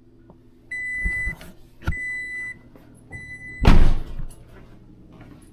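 An electronic warning chime beeps three times at one steady pitch, about half a second each, then a single loud thump.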